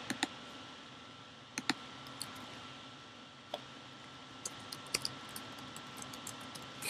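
Typing and clicking on a computer keyboard and mouse: scattered single clicks with pauses between them, then a quicker run of keystrokes near the end.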